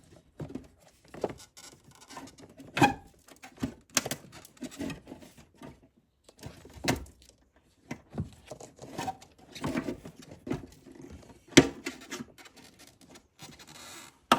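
Irregular clicks, taps and knocks of hands working at an APR Carbonio carbon-fibre intake box, trying to pry the air filter out of its housing, with a few sharper knocks scattered through.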